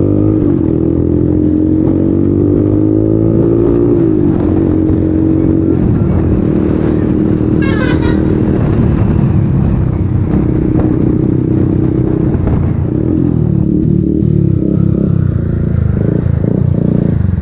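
Bajaj Pulsar 150's single-cylinder engine through an aftermarket SC Project exhaust, very loud. It rises in pitch for about four seconds, drops as a gear changes, then runs steadily. A brief high chirp comes about eight seconds in.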